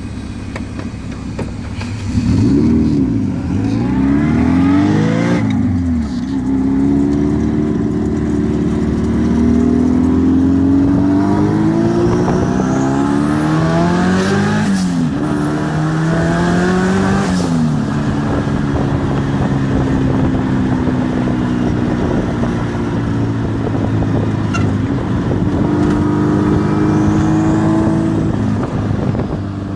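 Turbocharged buggy engine running and revving, its pitch climbing and falling back several times, with a sharp jump in loudness about two seconds in.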